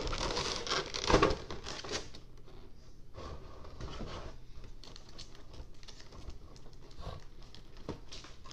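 Cardboard and plastic packaging of a toy collection box being handled as its contents are taken out: a second or two of rustling with a sharp knock about a second in, then quieter scattered taps and clicks.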